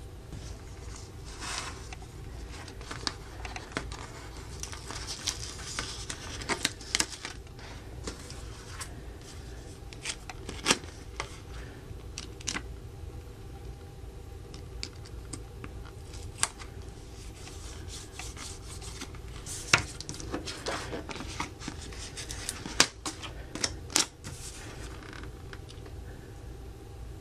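Small plastic toy parts of a Playmobil kit being handled and fitted together: scattered sharp clicks and snaps with rustling and scraping between them, over a steady low hum.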